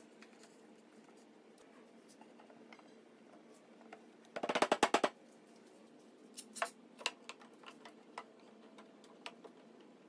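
Wooden workpieces and tools handled on a workbench during a dry-fit assembly. Near the middle comes a quick rattling run of about a dozen sharp clicks, followed by a few lighter scattered knocks and taps.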